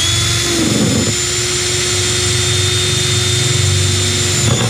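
Makita cordless drill running at high speed with a small bit, drilling a test hole through a car's sheet-metal firewall. A steady high whine; the motor note sags briefly about half a second in as the bit bites, then holds steady.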